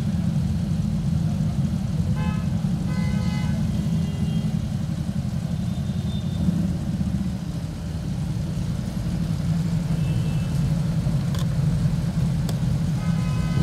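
Several Harley-Davidson V-twin cruiser motorcycles idling together with a steady deep rumble.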